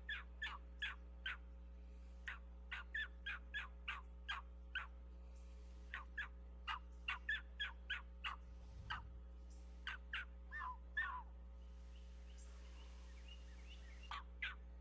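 Gray fox pup distress calls blown on a mouth diaphragm predator call: short, sharp yelps in quick irregular runs, with a couple of falling squalls about ten to eleven seconds in. The calls break off for about three seconds and start up again near the end.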